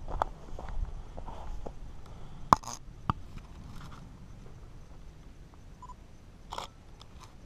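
Footsteps on sandstone slickrock over the first couple of seconds, then sharp camera clicks about two and a half and three seconds in and again near the end, as the camera is raised to the eye.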